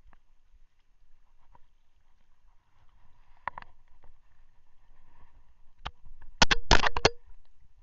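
Sharp knocks and thumps on a plastic kayak hull while a hooked queenfish is brought aboard. A soft pair of clicks comes about halfway through, then a quick, loud cluster of about five knocks near the end, some with a short hollow ring.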